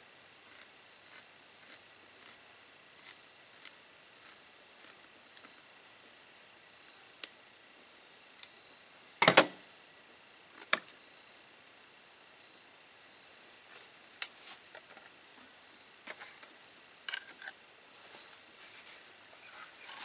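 Sharp knocks and clicks from a can of pumpkin being handled and emptied into a steel mixing bowl, the loudest a double knock about nine seconds in, over a steady high-pitched insect drone.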